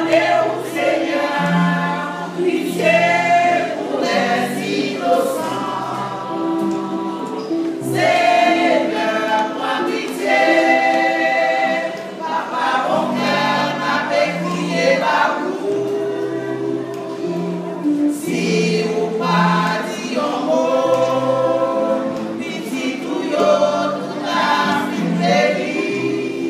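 Women's church choir singing a gospel hymn together, phrase after phrase, with held low notes underneath.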